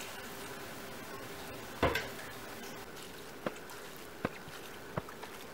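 A metal measuring cup knocks once about two seconds in, then taps lightly three times, as cupfuls of bean cooking liquid are scooped from a plastic bowl and poured into a pot of beans.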